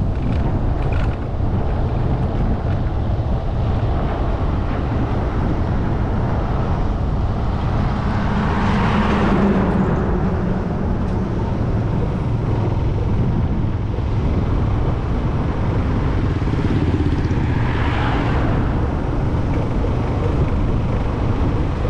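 Steady rumble of a moving road vehicle, with road and wind noise, and louder swells around nine seconds in and again near eighteen seconds.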